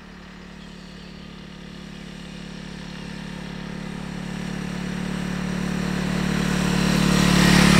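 Honda CRF300L's single-cylinder engine running at a steady cruise as the motorcycle approaches, its note holding one pitch while it grows steadily louder to its closest point at the end.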